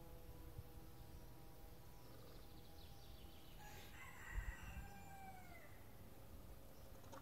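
A rooster crowing once, faintly, about halfway through: a single cock-a-doodle-doo whose pitch falls away at the end.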